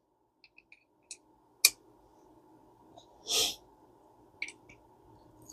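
Faint small clicks and taps of metal spinning-reel parts being handled while a part is threaded into place, with a short puff of breath about three seconds in.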